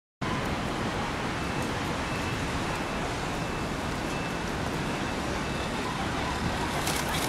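Steady city street noise: traffic hiss on wet roads with wind rumbling on the microphone, starting abruptly a moment in.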